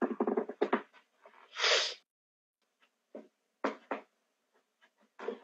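A mostly quiet pause with a few short, faint snatches of voice and a brief breathy exhale about a second and a half in.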